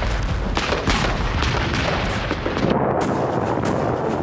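Battle gunfire: shots every few tenths of a second over a low rumble of explosions, the rumble dropping away about two and a half seconds in, leaving single sharp shots.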